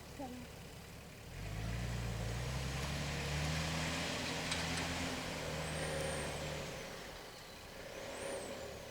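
Off-road 4x4's engine revving under load, climbing in pitch about a second and a half in and holding. It drops away near the end, then picks up again.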